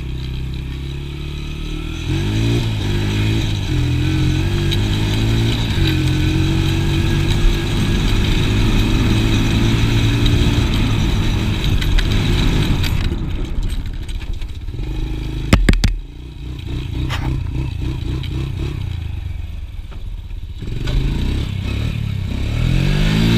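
Honda TRX90 ATV's small single-cylinder four-stroke engine revving up and running at high revs while riding. It drops back to a low, idling pace about halfway through, with a couple of sharp knocks, then revs up again near the end.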